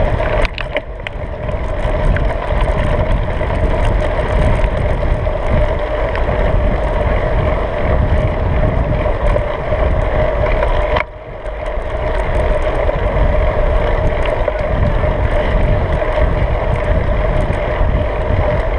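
Wind buffeting the microphone over the rumble of a bicycle rolling on a paved road, a loud, steady noise that drops briefly about eleven seconds in.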